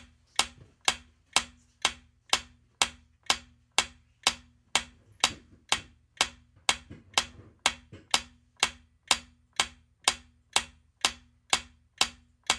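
Countdown timer ticking: a sharp clock-like tick, about two a second, steady and evenly spaced.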